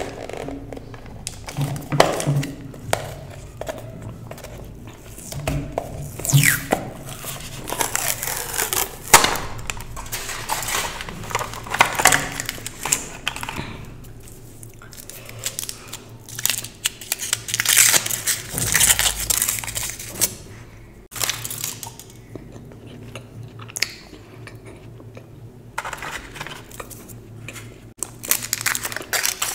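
Gold foil chocolate wrappers crinkling and crackling as they are peeled open by hand, along with a thin clear plastic box being handled. The crinkling comes in irregular bursts with short pauses between them.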